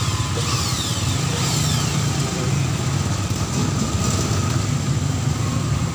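A steady low machine hum with a faint high whine.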